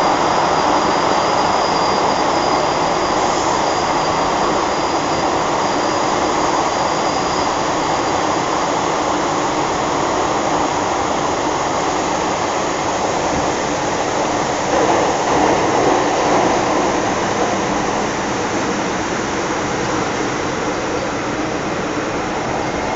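Inside a first-generation MTR M-Train electric multiple unit running on rails: a steady rumble of wheels and traction equipment, with a thin high whine that fades out about a third of the way through. There is a brief louder jolt about two-thirds in.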